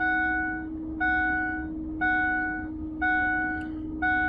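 Ford F-350 pickup's dashboard warning chime ringing about once a second, each chime lasting about two-thirds of a second, over a steady hum, before the engine is cranked.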